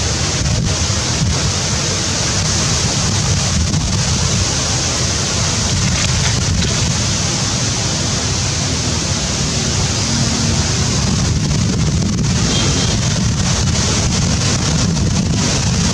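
Steady, loud rushing noise, like wind buffeting the microphone.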